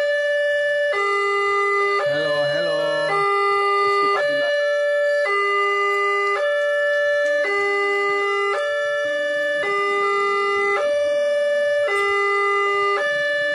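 Railway level-crossing warning siren sounding an electronic two-tone alarm, alternating a higher and a lower note, each held about a second. A brief wavering sound is heard under it about two seconds in.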